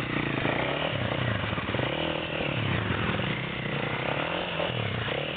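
Trail bike engine running, its revs rising and falling again and again.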